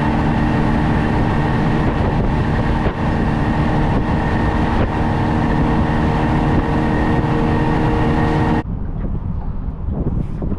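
Mercury outboard motor running steadily at speed, with heavy rush of wind and water. It cuts off abruptly about eight and a half seconds in, leaving quieter scattered sounds.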